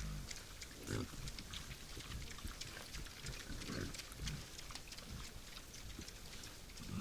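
Wild boar grunting low several times, with many short clicks and crackles in between.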